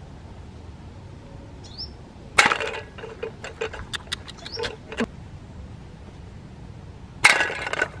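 Handling noise from a string-and-can trap being set: two sudden crackling clatters, about two and a half seconds in and again near the end, each followed by a scatter of sharp clicks.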